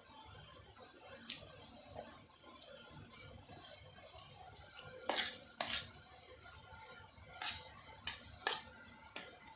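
Metal cutlery clinking and scraping against a dish during eating, about seven sharp clinks at irregular intervals, the loudest two a little past the middle.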